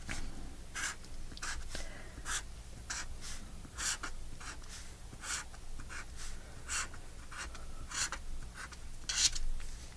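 Pen drawing short lines on paper, one scratchy stroke after another at about two a second.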